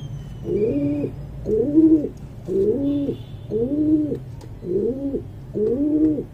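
Domestic pigeon cooing, a steady run of repeated coos a little more than one a second.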